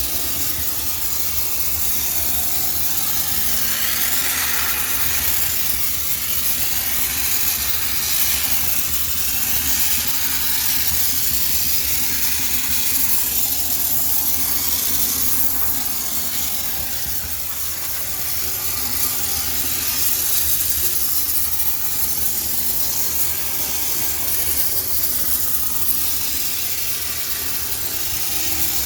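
High-pressure steam cleaner jetting steam into a washing machine to sterilize it: a continuous loud hiss over a steady low hum.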